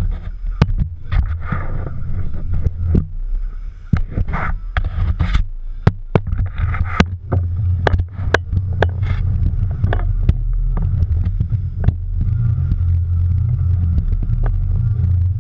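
Low steady rumble of a fishing boat's engine with wind on the camera's microphone, broken by many irregular sharp knocks and rattles. The rumble grows louder and more even about twelve seconds in.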